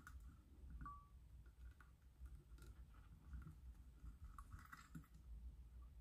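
Near silence with a few faint clicks and light rustles from fingers handling wire ends and a plastic screw terminal block.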